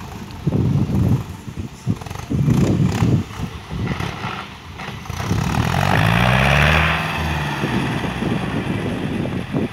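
Farm tractor engine running while pulling a disc harrow over tilled soil. Twice in the first three seconds there are heavy low rumbling bursts, and about five seconds in the engine pitch rises and then falls under a louder clatter.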